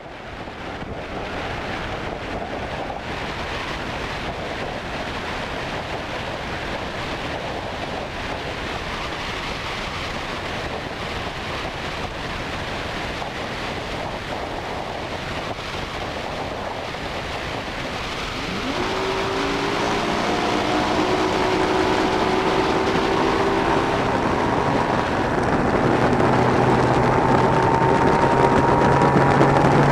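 Wind and water rushing past a bass boat running at speed. About 19 s in, engine tones come in and climb slowly in pitch as they get louder, and a steady low engine hum joins near the end.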